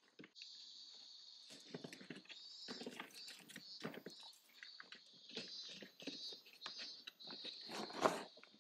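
Hands working on a plastic LED front grille, peeling the red protective liner off its double-sided tape: scattered rustles, crinkles and small clicks of plastic, film and cardboard, with one sharper knock near the end. A steady high buzz runs behind from shortly after the start.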